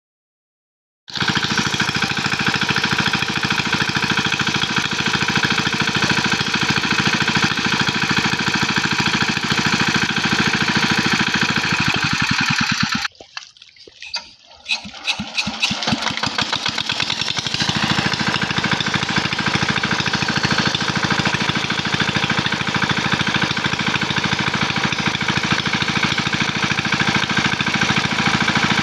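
Small engine of a portable water pump running steadily with a rapid firing beat as it pumps water out of the pond. The engine sound breaks off briefly about halfway through and then resumes.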